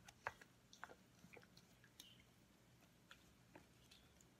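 Faint, irregular soft clicks and squishes of a silicone spatula stirring clumpy, wet flour-and-yeast dough in a stainless steel bowl.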